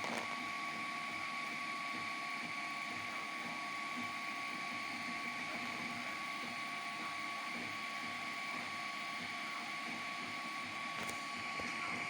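3D printer running, with a steady machine hum and several fixed whining tones; one higher tone comes in just at the start.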